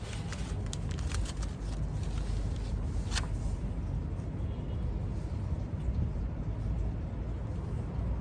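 Steady low background rumble. Over it, a few light clicks or rustles come in the first second and a half, and one more about three seconds in, like small handling sounds at a desk.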